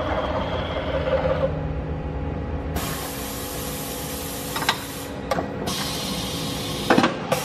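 Industrial plastics-processing machine running with a steady hum, then from about three seconds in a loud hiss that breaks off briefly twice, with a few sharp knocks near the end.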